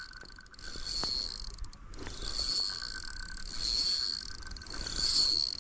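Daiwa Certate 4000 spinning reel whirring in surges about four times, its gears and drag working while a large, strong-pulling asp is fought on the line.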